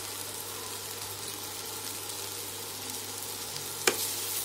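Vegetables sizzling gently in oil in a frying pan as they are stir-fried with a wooden spatula, with one sharp knock of the spatula against the pan near the end.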